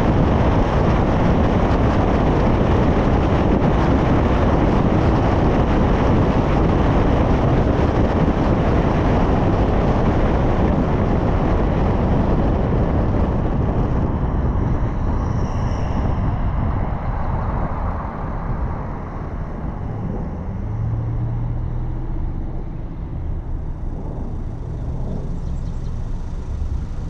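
Road and wind noise of a car driving at speed, an even rushing that fades away as the car slows and comes to a stop. Once it has stopped, a low steady hum remains.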